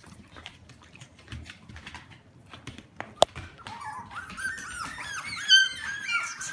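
Four-week-old Alaskan Klee Kai–Shiba Inu puppies squealing and whining: light scattered clicks at first, one sharp click a little past halfway, then a run of short, high squeaks that grows louder toward the end.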